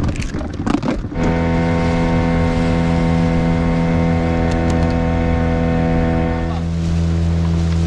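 A small wooden fishing boat's motor running steadily under way, a low even note with many overtones. It starts about a second in, after a moment of talk, and its note eases slightly about six and a half seconds in.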